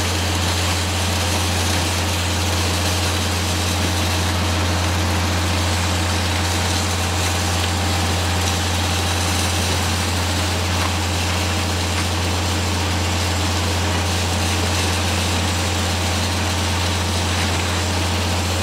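Concrete pump truck's heavy diesel engine running at a steady speed, a constant low drone.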